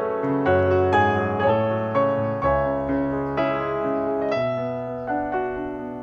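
Background piano music, a melody of struck notes over held bass notes.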